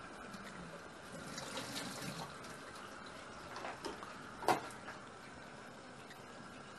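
Kitchen tap running a thin steady stream into a stainless-steel sink, with light handling rustles and a single sharp click about four and a half seconds in.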